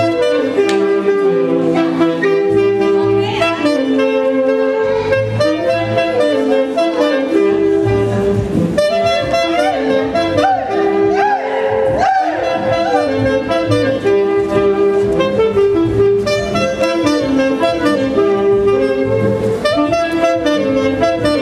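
Several saxophones of a live wind band playing a lively Andean huaylas tune, the melody running continuously over a steady beat.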